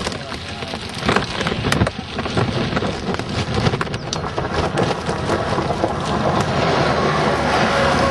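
Heavy thunderstorm rain pelting a surface, a dense patter with many sharp individual drop strikes, growing louder over the last few seconds.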